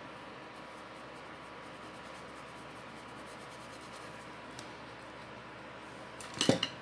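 Faint strokes of a paintbrush on fabric over a steady background hiss, then a brief loud clatter of sharp clicks near the end as the brush or palette is knocked.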